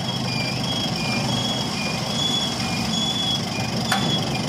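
Mobile crane's warning alarm beeping in alternating high and low tones, about two and a half beeps a second, over the steady hum of its diesel engine running. A single sharp knock about four seconds in.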